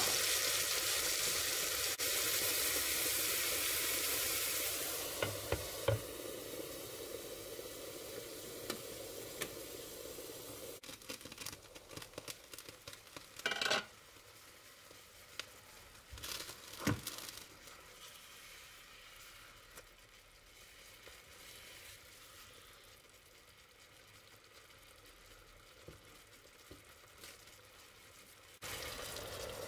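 Chicken breast fillets sizzling in a frying pan of simmering milk-and-butter sauce, loud at first and then fading to soft crackling and popping. Two sharper knocks come about halfway through.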